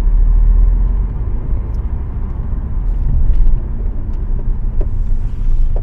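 Steady low road rumble inside a 2015 Audi A4 on the move, with a few faint creaks and knocks from the front suspension as it turns. The sign of worn, loose control-arm rubber bushings.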